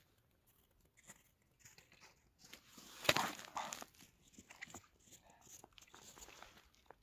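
Crunching and scraping of slushy ice and snow as a pike tip-up and its line are handled at a hole in the ice, loudest about three seconds in.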